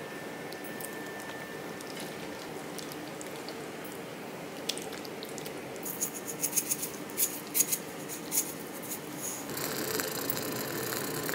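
Quiet kitchen plating sounds: stir-fried pork and bean sprouts slid from a bowl onto a plate, then a quick run of small clicks and taps as garnish is added by hand over the plate. A steady hiss comes in near the end.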